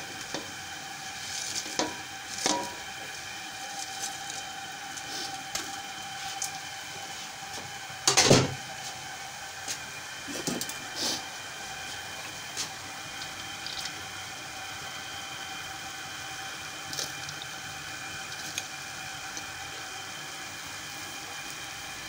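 Light clicks and knocks of pakoras and rice being layered into a metal cooking pot, with one louder knock about eight seconds in, over a steady background hum.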